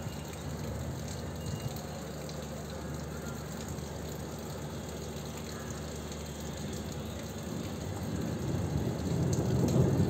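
Thunder rolling low and deep, building from about eight seconds in to its loudest near the end, over a steady background rush of storm noise.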